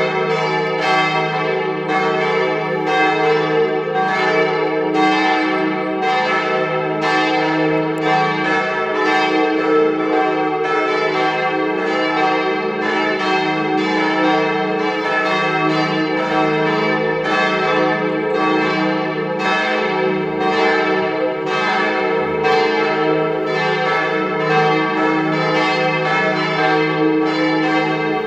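Partial peal of the concrete bell tower's church bells: several bells ringing together in a steady, overlapping stream of strokes over a long sustained hum.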